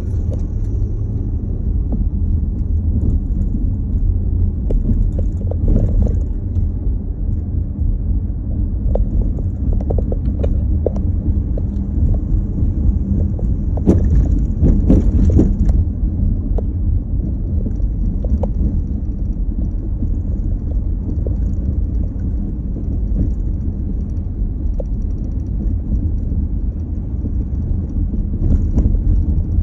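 A road vehicle on the move, a steady low rumble with scattered light rattles and a louder, brighter stretch about halfway through.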